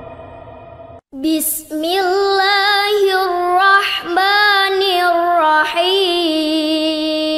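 A Quran reciter's voice chanting in a long, drawn-out melodic line with wavering, ornamented turns. It starts about a second in, after the last held note of the previous phrase breaks off.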